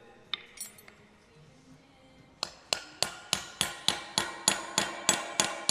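Hammer tapping on metal while seating a bearing and seal into the hub of a Teagle flail topper: a steady run of sharp, ringing strikes, about four a second, starting about two and a half seconds in.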